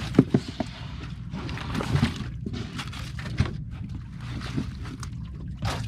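Wet fish being shifted by hand inside a styrofoam cooler: scattered slaps, knocks and wet rustling over a steady low rumble.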